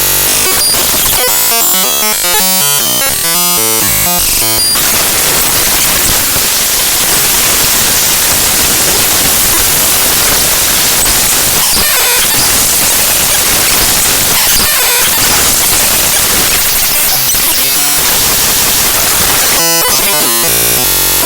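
Raw binary data of the avcodec.dll library file played back as audio: loud harsh static. For the first few seconds it comes as rapid, choppy blocks of buzzy tones, then it turns to a long stretch of even hiss, and choppy tones return near the end.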